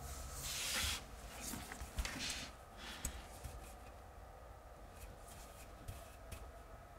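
Wallpaper brush swishing over pasted backscene paper on a wall, smoothing out air bubbles: a few brisk strokes in the first three seconds, the loudest about a second in, with a couple of light knocks, then fainter rubbing.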